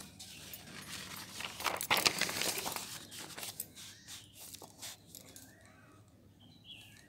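Scratchy rustling and scraping of paper, loudest about two seconds in and dying away by about five seconds, as from writing on or handling sheets of paper.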